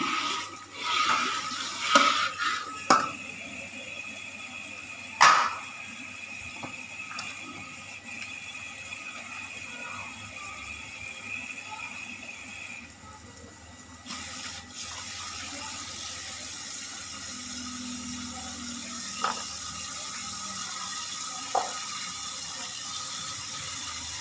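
Kitchen tap running into a stainless steel sink while dishes are washed by hand. Dishes clink and knock against the sink several times in the first few seconds, with one louder knock about five seconds in and two light clicks near the end. The flow drops off for about a second just past the middle.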